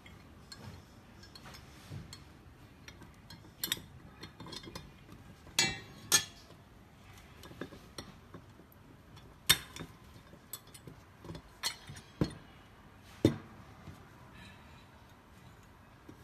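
Scattered sharp metallic clinks and knocks, about eight separate strikes with short rings after some of them, as metal parts are handled and set against each other.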